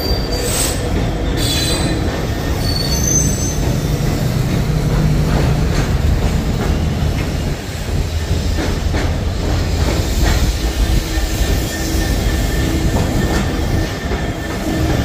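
Freight train of two Class 66 diesel locomotives and de-icing wagons passing slowly and loudly: steady low diesel rumble, high wheel squeal in the first few seconds, then wheels clicking over the rail joints as the wagons go by.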